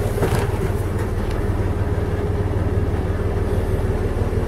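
Ford 105 hp six-cylinder inboard diesel running steadily, heard from inside the cabin as an even low drone. There are a couple of light knocks in the first second and a half.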